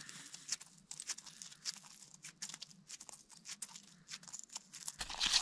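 Irregular crisp crunches and ticks on crusted ice and snow close by, with a louder crunch near the end.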